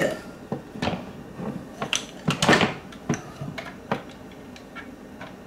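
Plastic and wire parts of a replacement refrigerator ice maker being handled and fitted together: irregular light clicks and knocks, the loudest cluster about two and a half seconds in.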